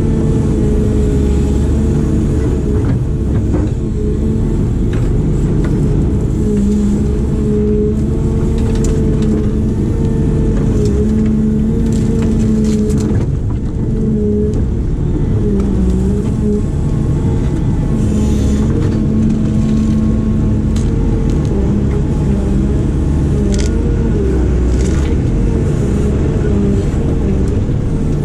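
Heavy construction machine's diesel engine running steadily under load, its note dipping and recovering several times as the hydraulics work, with scattered faint knocks and clicks.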